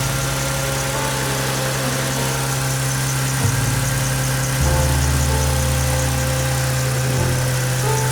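Background music: sustained synth tones over a bass line that moves in steps, with a steady ticking beat.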